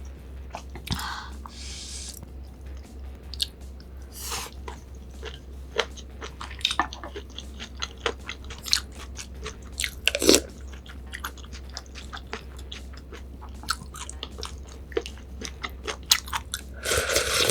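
Close-miked eating: a person chewing and biting food, a rapid scatter of small clicks and crunches with a few longer noisy bursts about a second in, around four seconds in and near the end, over a steady low hum.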